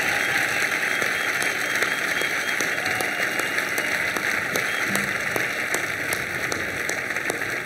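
Large crowd applauding steadily, a dense patter of clapping with a few sharp single claps standing out.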